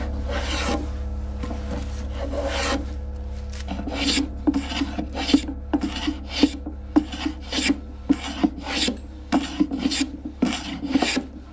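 Hand plane shaving the edges of a wooden box flush, wood rasping under the blade. A few longer strokes, then from about four seconds in a run of quick short strokes, about two a second.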